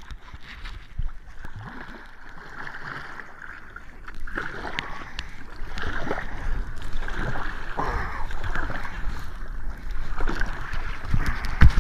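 Water splashing and sloshing against a kayak under sail, in irregular bursts that pick up after about four seconds, with a few light knocks and a loud low thump near the end.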